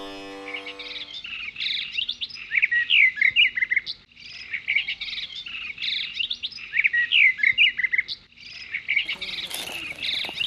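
Songbirds chirping: many quick, high rising and falling chirps in busy phrases, with two brief pauses.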